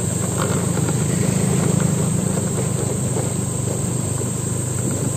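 Motorcycle engines running at low speed close by, a steady low hum.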